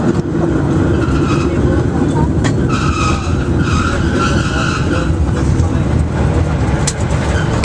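Cable car running along its track: a loud, steady rumble and rattle. A high squeal joins in from about three to five seconds in.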